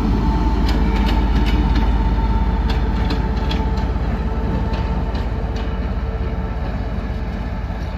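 Pakistan Railways GMCU-15 diesel locomotive running light, its engine droning steadily with a held whine over it and scattered clicks, slowly getting quieter as it moves away.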